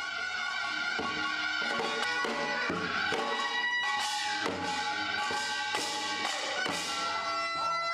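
Korean traditional folk music (pungmul): drums struck in a steady beat under a melody held in long, sustained notes.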